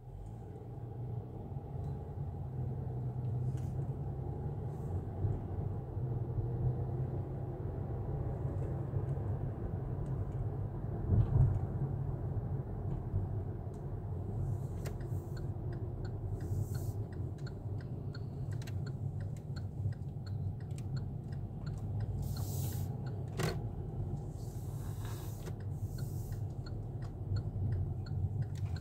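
Car cabin road noise: a steady low rumble of engine and tyres while driving, with one thump about a third of the way in. About halfway through, a turn-signal indicator starts ticking at an even pace as the car turns into a side street.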